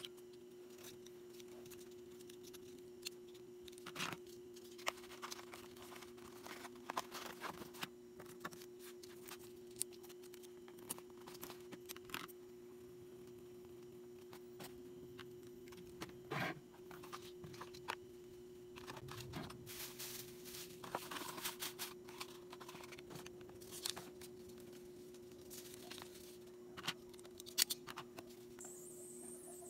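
Orders being packed by hand: scattered rustles, taps and tearing of packaging materials over a steady low hum.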